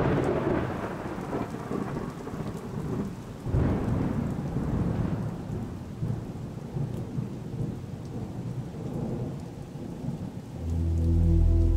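Thunder rolling over steady rain: one roll at the start and a second about three and a half seconds in, then slowly dying away. Music with a low steady beat comes in near the end.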